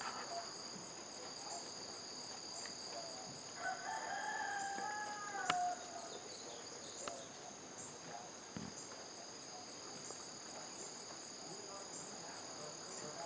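A steady, high, pulsing insect chorus, with a rooster crowing once about four seconds in, the call falling in pitch at its end.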